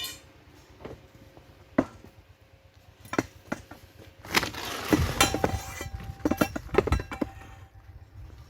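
Metal parts and tools clinking and knocking: a few separate knocks, then a busier clatter of metal-on-metal knocks through the middle with a short metallic ring.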